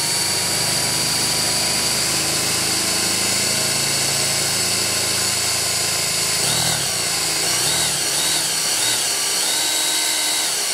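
Cordless drill running steadily as it bores a hole through a fiberglass boat hull and its gel coat, turned in reverse so as not to chip the gel coat. In the second half the motor's pitch wavers up and down as the load changes.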